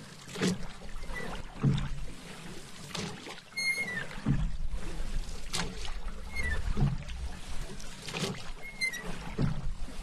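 A paddle dipping and pulling through calm water, one swishing stroke about every 1.2 seconds in a steady rhythm.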